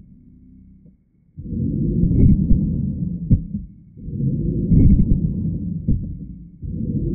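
Low, muffled rumbling that swells and fades in regular pulses about every two and a half seconds, starting about a second and a half in. The pulses repeat almost identically, like a looped dramatic sound effect laid over the footage.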